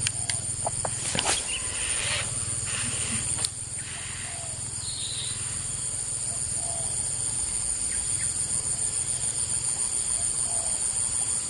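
Insects droning in a steady high-pitched chorus. A few sharp clicks sound in the first few seconds, and a faint short call repeats every second or two.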